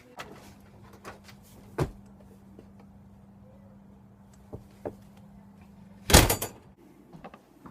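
A door being opened and shut, with a sharp click about two seconds in and a loud bang of the door closing about six seconds in, a few small clicks between them, over a faint steady hum.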